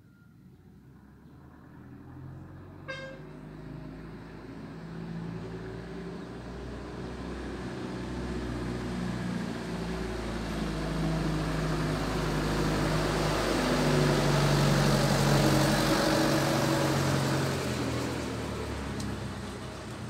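A bus engine running as the bus approaches on the road, growing louder over about fifteen seconds and then easing off slightly. A short horn toot sounds about three seconds in.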